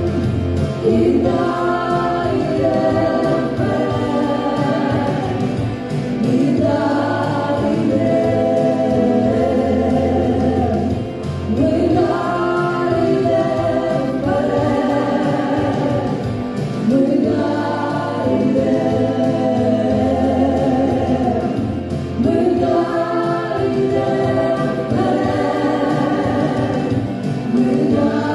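A choir singing a song with instrumental accompaniment, in sung phrases a few seconds long over a steady bass.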